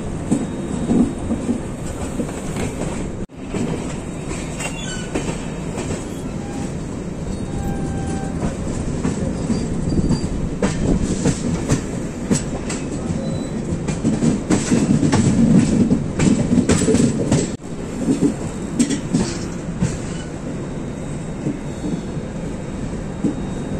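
Express train running slowly, its wheels clattering over rail joints and points, with a few brief faint wheel squeals. The train has slowed for a curve and the station approach. The sound breaks off abruptly twice.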